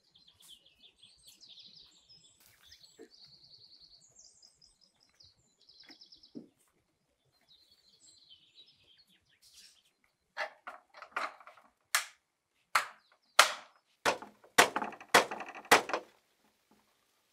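Small birds chirping and trilling faintly, then about ten loud knocks of a fist on an iron-plated door, in quick groups over the last several seconds.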